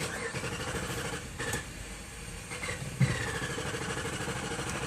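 A 2012 Jeep Grand Cherokee engine is heard from inside the cabin during a failed start attempt, a steady rapid low pulsing that gets louder about three seconds in. The owner suspects that the fuel pump is losing power, so the engine keeps turning over or fires and cuts off instead of starting.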